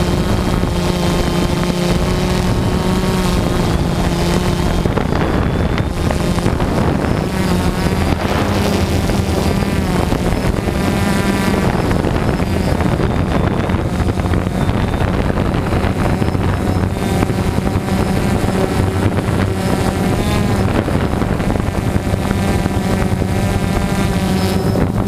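DJI Phantom 2 quadcopter's electric motors and propellers humming steadily close to the microphone. Several times the pitch wavers up and down as the motor speeds change, with wind buffeting the microphone.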